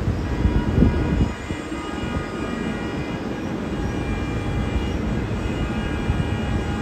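NYC subway train running on curved elevated track: a steady low rumble of wheels on rail with a few louder knocks about a second in. A steady high whine of several tones holds over the rumble.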